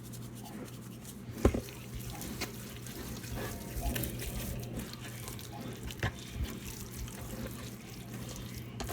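Kitchen handling sounds: a few light knocks and clicks over a steady low hum and faint hiss.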